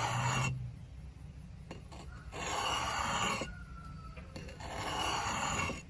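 Double bit axe blade drawn in slow strokes across a whetstone oiled with WD-40, sharpening the edge. There are three scraping strokes about two and a half seconds apart, each about a second long, the first ending just after the start.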